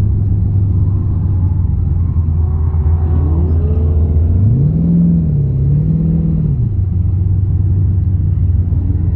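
Holden VX Commodore SS's 5.7-litre LS1 V8 running at a low, steady pace, with two brief rises in revs about halfway through before it settles back.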